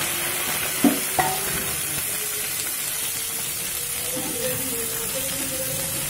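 Boiled potato wedges sizzling in hot oil in a non-stick frying pan as they are stirred with a spatula, with two sharp knocks about a second in.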